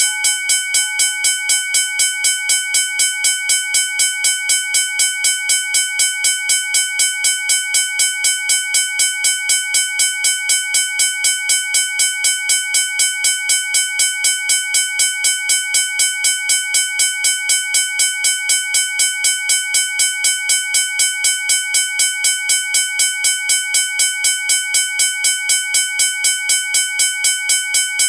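Railroad crossing warning bell clanging at an even, quick rhythm, each strike ringing with several metallic tones.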